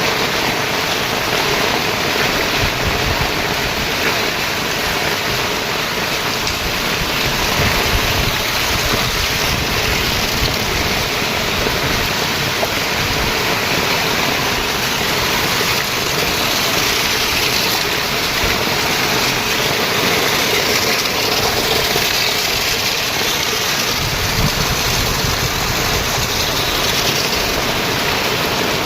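Steady, unbroken rushing of floodwater.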